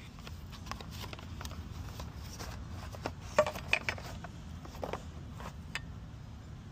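Scattered light clicks and rustles of parts being unpacked, as a black plastic handle is pulled from its cardboard sleeve. A few sharper clicks come a little past three seconds in, over a steady low rumble.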